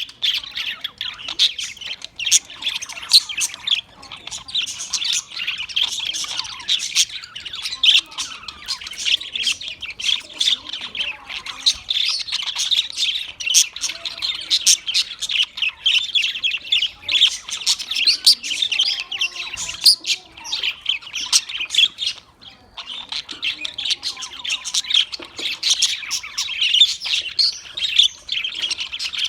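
A flock of budgerigars chattering continuously, a dense run of short chirps and squawks overlapping one another, with a brief lull about twenty-two seconds in.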